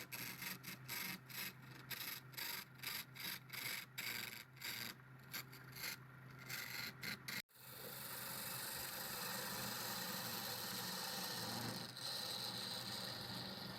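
Tool rasping against wood in even, repeated strokes, about two a second, over a steady low motor hum. After a sudden cut a little over halfway, a steady hiss of wood being worked continues over the same hum.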